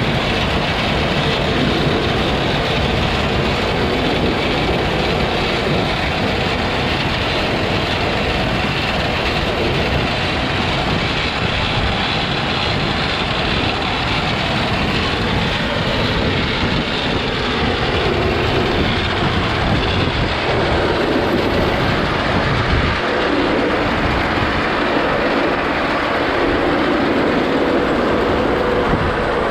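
Farm machinery running steadily: a continuous dense mechanical noise with no pauses.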